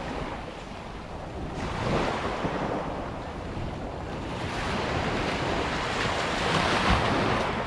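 Small waves breaking and washing up a sandy beach, the wash swelling and falling back, louder about two seconds in and again near the end, with wind rumbling on the microphone.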